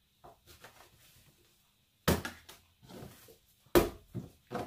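A plastic bench scraper working through sourdough dough on a wooden board, with soft scuffs and a few sharp knocks as the scraper and the dough pieces hit the board; the loudest knock comes near the end.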